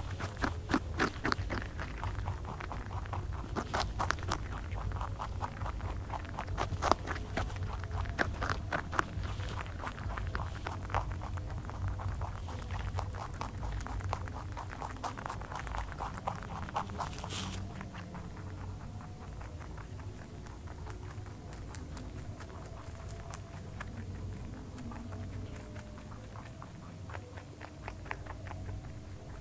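Rabbits chewing raw cabbage and carrot: a fast run of crisp, crunching clicks that is busiest in the first half and thins out and softens after about eighteen seconds, over a low steady hum.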